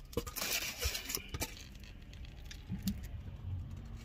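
Close-up eating sounds: a few light clicks and a short rustle in the first second and a half as chicken thigh bites and their container are handled, then quieter chewing.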